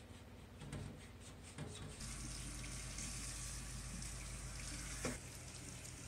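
Kitchen faucet running, water splashing onto a plastic freezer drawer being rinsed in the sink, starting about two seconds in. Before it come light clicks of the drawer being handled and wiped, and there is a single knock about five seconds in.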